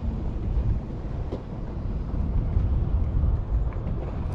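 Low, uneven rumble of wind buffeting the microphone on an open boat, with a faint tap about a second and a half in.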